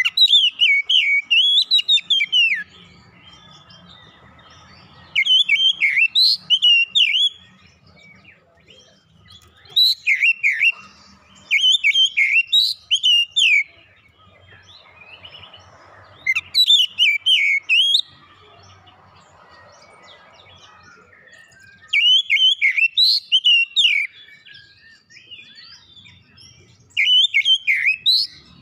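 Oriental magpie-robin singing in full voice (gacor): loud, rich whistled phrases of quickly varying notes, each two to three seconds long, seven of them with pauses of a few seconds between.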